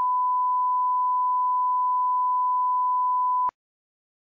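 Line-up test tone played with colour bars: a single steady beep at one pitch, which cuts off suddenly about three and a half seconds in.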